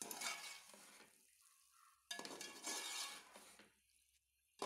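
A metal spoon stirring and scraping chicken and spices around a metal pot, in two short spells about two seconds apart, with a light sizzle.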